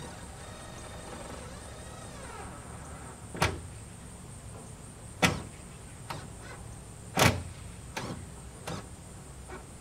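A small power tool's motor whines briefly and winds down, then a series of sharp, uneven knocks follows as work goes on at the edge of a steel panel roof, the loudest about seven seconds in.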